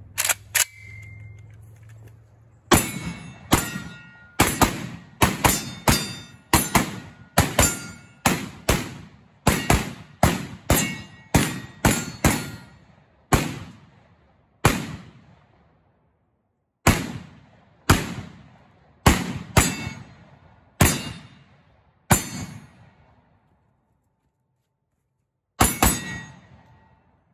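Unsuppressed Micro Draco 7.62x39 with a 6.25-inch barrel, fired semi-automatic about thirty times: very loud sharp reports at roughly two a second at first, then more spaced out with longer pauses, each ringing out after. Two sharp clicks come just before the shooting starts.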